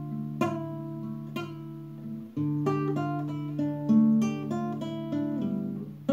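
Classical acoustic guitar played solo, plucked chords and notes ringing over held bass notes. After about two and a half seconds the bass changes and the notes come quicker, one after another.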